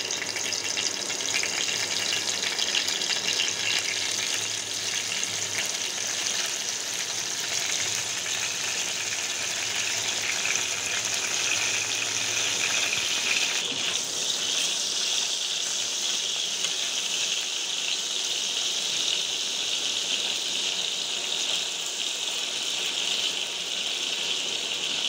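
Eggplant slices frying in hot oil in a kadai, a steady sizzling hiss that fills out as more pieces go into the pan.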